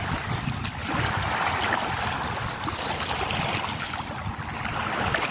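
Small sea waves lapping and trickling over the stones of a rocky shoreline in shallow water: a steady, even wash of water sound.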